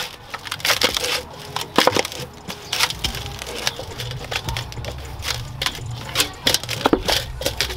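Hands kneading a large mass of puff-puff (bofrot) dough in a big metal bowl: irregular wet slaps, squelches and knocks of dough and hands against the metal, several a second.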